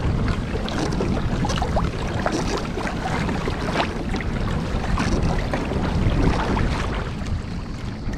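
Wind rumbling on the microphone aboard a fishing kayak on open water, with many small scattered ticks and splashes.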